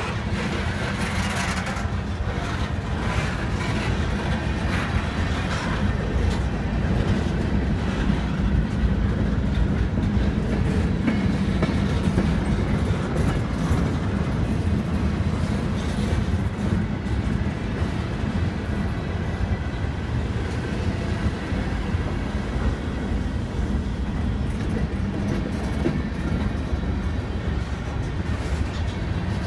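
Freight cars (covered hoppers, tank cars and boxcars) rolling steadily past: a continuous low rumble of steel wheels on rail, with some wheel clatter in the first few seconds.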